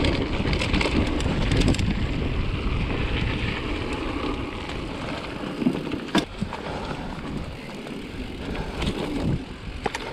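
Mountain bike riding down a dirt singletrack: tyres rolling on dirt and the bike rattling over bumps, with wind buffeting the microphone, heaviest in the first couple of seconds. A sharp knock about six seconds in and another near the end.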